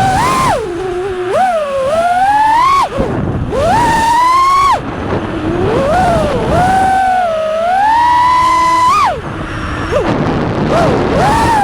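FPV racing quadcopter's brushless motors whining as the throttle is worked during freestyle flying. The pitch swoops up and down, climbs to long high whines and drops away sharply several times as the throttle is chopped.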